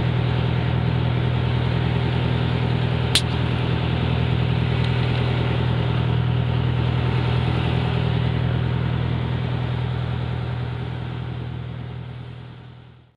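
Fishing boat's engine running steadily underway, with water rushing along the hull. There is one sharp click about three seconds in, and the sound fades away near the end.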